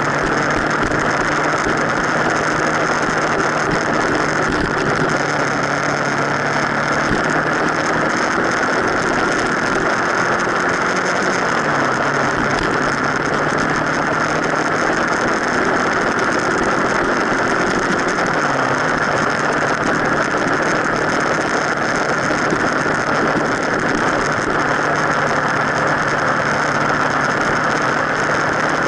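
Motorcycle riding along a road, heard from down on the front fork: a loud steady rush of wind and tyre noise over a low engine hum. The engine pitch dips briefly twice, around the middle.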